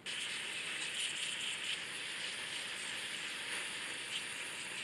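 Aerosol parts cleaner spraying in one long, steady hiss onto the greasy gears of an electric winch, starting suddenly, washing the grease off.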